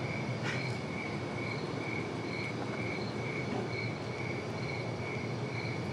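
A cricket chirping steadily, about two chirps a second at one even pitch, over a low steady rumble.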